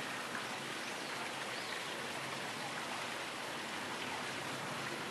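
Steady, even hiss of outdoor ambient noise with no distinct events.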